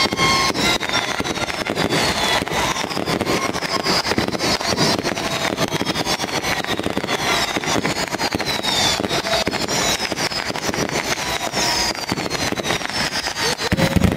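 A continuous fireworks barrage: dense rapid crackling and popping, with repeated high falling whistles.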